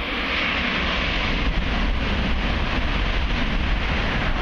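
Tohoku Shinkansen bullet train approaching and passing at high speed: a loud rushing of air and wheel noise with a deep rumble, which builds up and then holds steady.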